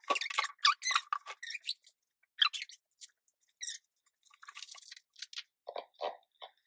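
Irregular crinkly rustling and small clicks of small objects being handled, in short bursts that are densest at the start and then scattered.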